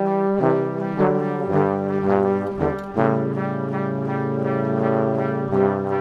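Brass band music playing slow, held chords that change every second or so, then one long chord held for about two and a half seconds before the next change.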